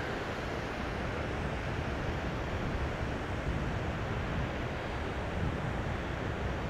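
Ocean surf washing onto a flat sandy beach, a steady rush, with wind buffeting the microphone in low gusty rumbles.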